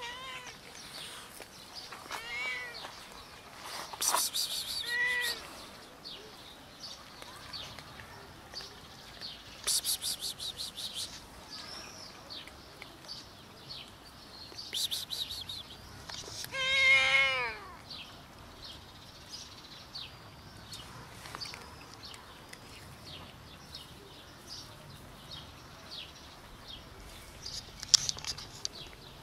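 Stray cats meowing several times, short calls at first and the loudest a long falling meow about seventeen seconds in, with a few short noisy bursts between the calls.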